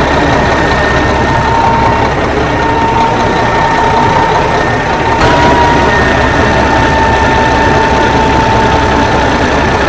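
An old Ford 900 truck engine running steadily, with a thin steady whine above the engine noise and a brief rise in level about five seconds in.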